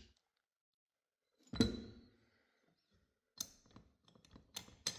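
Metal clutch parts being handled: one sharp knock with a short ring about a second and a half in, then a run of light clicks near the end.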